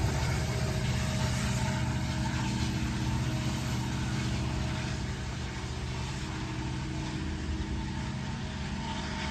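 Diesel-electric freight locomotive moving away after passing, its engine a steady low drone under light rail noise, fading slowly.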